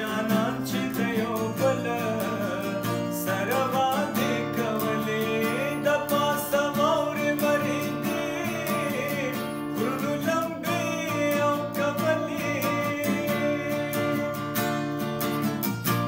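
Background music: strummed acoustic guitar with a voice singing over it, at an even level throughout.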